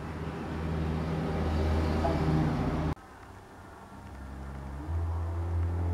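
A low, steady engine hum, like a motor vehicle running close by, growing louder; it cuts off suddenly about three seconds in, then returns and swells louder near the end.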